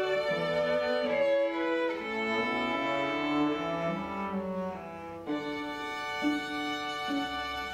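A string quartet of violins and cello playing classical music, long held bowed notes, with a brief lull about five seconds in before the next phrase.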